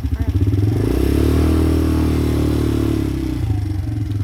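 Small four-wheeler (ATV) engine idling, then revved up about half a second in and held high for about three seconds before dropping back to idle, during an attempt to pull an old mower out.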